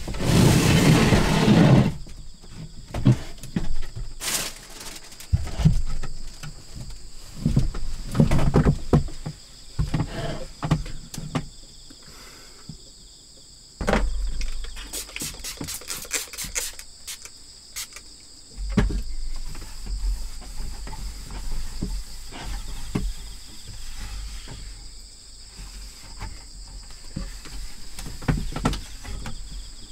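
Insects trilling steadily outside, under irregular handling noise inside a small wooden cabin: a loud burst of rustling at the start, then scattered knocks and clicks, including a quick run of clicks around the middle. A low rumble comes in about two-thirds of the way through.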